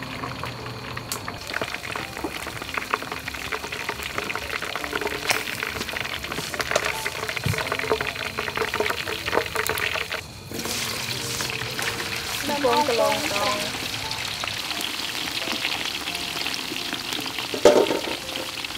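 Chicken drumsticks deep-frying in hot oil in a wok, a dense crackling sizzle as they are turned with metal tongs. After a short break about ten seconds in, a steadier sizzle of potato sticks frying for french fries, with a brief louder burst near the end.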